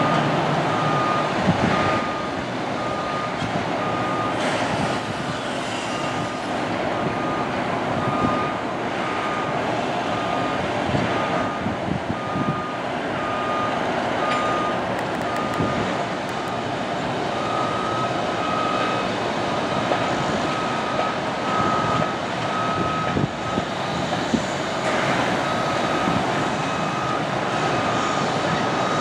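A construction vehicle's reversing alarm beeping steadily, about three beeps every two seconds, growing louder about halfway through, over steady traffic and vehicle noise.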